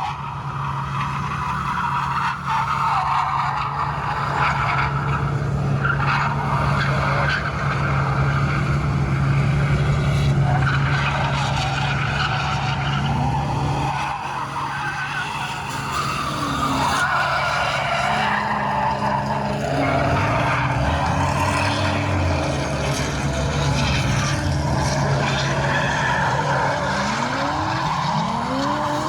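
Drift car sliding with its tyres squealing while the engine runs at high revs, its pitch rising and falling with throttle; a sharp rev rise comes near the end.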